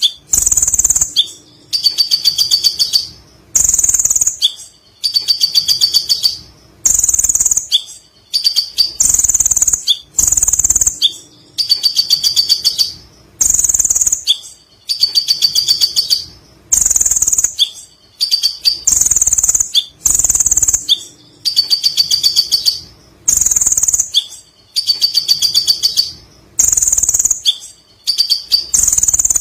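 Kolibri ninja (a sunbird) singing its long, fast chattering 'ngekek' trill: high rapid notes in phrases about two seconds apart, over and over.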